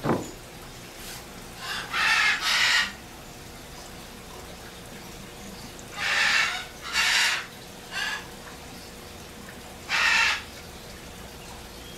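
A bird squawking with harsh calls of about half a second each, several times: two together about two seconds in, another pair about six seconds in, a short one at eight seconds and one more at ten. A faint steady hum lies underneath, and a brief thump comes right at the start.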